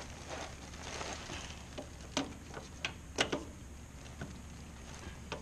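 Hand tool working on the Hydro-Gear ZT-3100 transaxle's filter cover: a handful of sharp metal clicks and light knocks, irregularly spaced, the loudest around two and three seconds in, with some rustling of hands and gloves.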